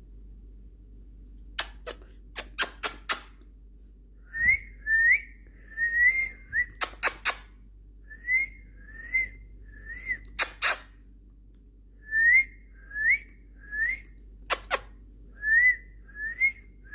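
Caged pet birds calling: a steady run of short rising whistled chirps, about one or two a second, broken now and then by clusters of very sharp, shrill chips.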